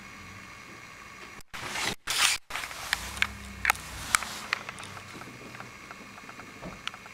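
Handheld camera being moved and handled. A loud rushing scrape comes about one and a half to two and a half seconds in, broken by brief dropouts, and is followed by scattered clicks and taps over a low steady hum.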